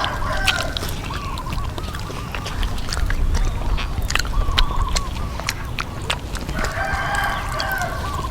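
A rooster crowing twice, once at the start and again near the end, with short clucks from chickens in between. Sharp crunching clicks of crispy deep fried chicken being bitten and chewed run through, over a steady low rumble.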